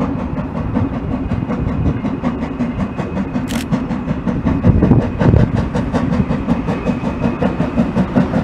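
Bagnall saddle tank steam locomotive working a train of wagons towards the listener, its exhaust beating in a rapid, even rhythm over the rumble of the train and growing louder as it approaches. A single short, sharp sound cuts in about three and a half seconds in.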